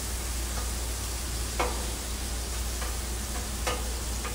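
Vegetables and meat sizzling on a Blackstone flat-top griddle while a metal spatula scrapes and clinks on the steel cooking surface as zucchini slices are moved around. Two sharper spatula clinks stand out, about a second and a half in and again near the end, over a steady low hum.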